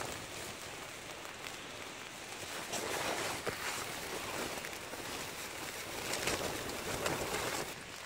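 Wind gusting, swelling and easing twice, with the nylon of a rain jacket rustling close to the microphone and a few small handling clicks.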